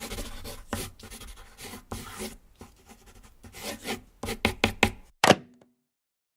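Irregular knocking and scraping taps, a handful a second, ending in one sharp click with a brief low ringing tone.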